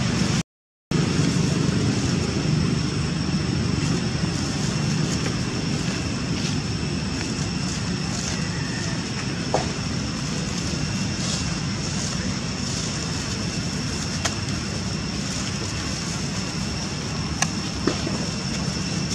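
Steady outdoor background drone: a low rumble under a thin, steady high-pitched hum, with a few faint sharp clicks in the second half.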